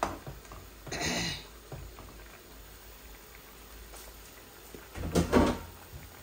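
Kitchen handling sounds over a pan of rui fish curry simmering faintly: a brief rustling scrape about a second in, and a heavier knock a little after the five-second mark.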